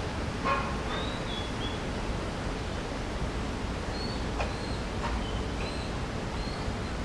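Steady rushing background noise, with several short high bird chirps scattered through it and a few faint clicks.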